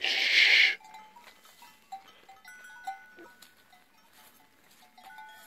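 A sharp, hushing 'shhh' hiss from the herder for under a second, then faint, irregular clinking and ringing of livestock bells.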